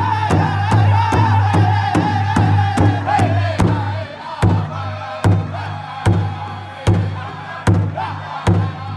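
Powwow drum group: several men strike one large hide drum in unison with drumsticks while singing together in high voices. About four seconds in, the singing drops back and the drum goes on with loud, evenly spaced accented beats.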